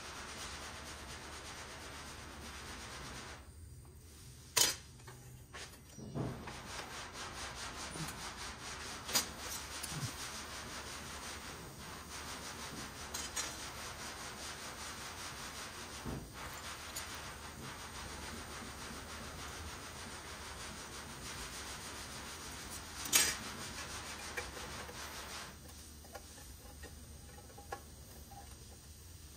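Hands rubbing and handling blue tape on a sheet-steel headlight bucket at a metal workbench, a steady scuffing broken by a few sharp clicks of tools or parts touching the bench. The loudest clicks come a few seconds in and again about two-thirds of the way through, and the rubbing dies down near the end.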